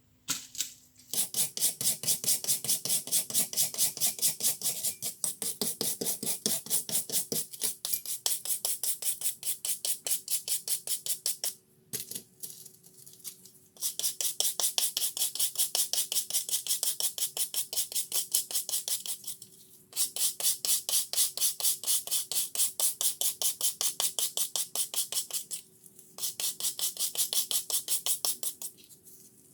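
Rapid back-and-forth scraping strokes on the rusted steel head of a dengel hammer, about four or five strokes a second, in runs of several seconds with brief pauses: hand abrasion to take off the rust.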